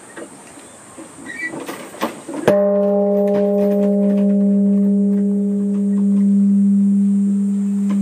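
Large Japanese bronze temple bell (bonshō) struck once by its swung wooden beam about two and a half seconds in, rung by the bell-keeper to mark the time. The strike gives a dull boom, then a long low hum that slowly swells and ebbs while its higher overtones die away within a few seconds.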